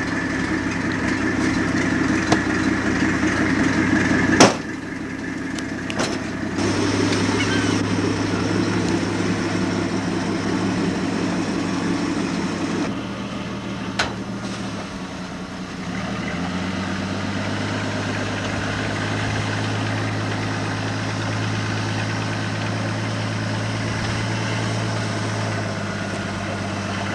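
Fishing boat's engine running steadily, its note shifting a few times as the engine speed changes, with a single sharp knock about four seconds in.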